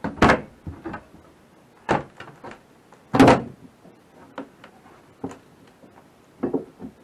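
Drywall and a wooden strip being pried loose from a wall with a pry bar: a series of separate knocks, cracks and creaks, the loudest about three seconds in.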